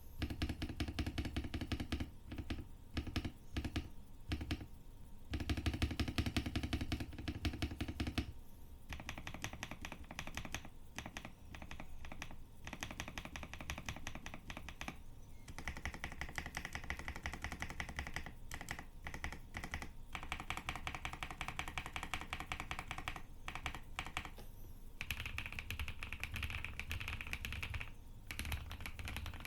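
Fast, continuous typing on a custom Weikav WK75 mechanical keyboard with Akko Cream Yellow linear switches and Cherry-profile keycaps, a quick run of key clacks with brief pauses. A deeper, louder stretch of typing comes around six seconds in.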